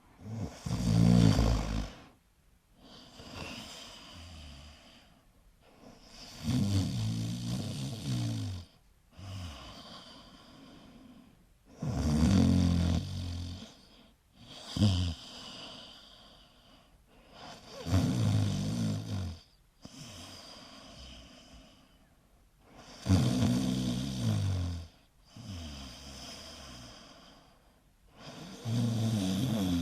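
Snoring: a loud snore on each breath in, about every five to six seconds, six in all, with a quieter breath out between each.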